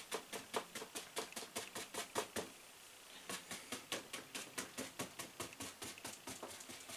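A 2-inch bristle paint brush dabbing on a stretched canvas: quick taps, about five a second, with a short break about two and a half seconds in.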